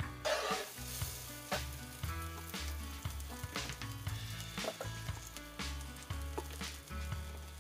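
Margarine and oat pancake batter sizzling on a hot stovetop griddle, louder for a moment just after the start. Background music with a steady beat plays underneath.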